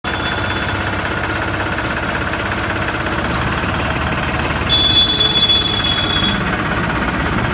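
New Holland 3630 TX tractor's three-cylinder diesel engine idling steadily. A high steady tone sounds for about a second and a half, nearly five seconds in.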